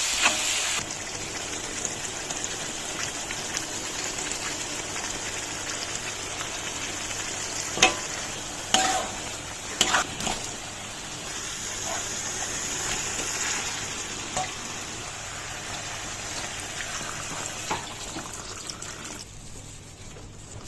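Food frying in a pan with a steady sizzle, stirred, with a few sharp knocks of a utensil against the pan about eight to ten seconds in. The sizzle eases near the end.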